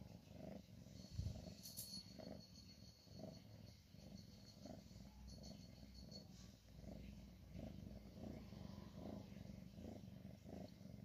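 Persian mother cat purring faintly during labour, just after delivering a kitten, in an even rhythm of about two pulses a second.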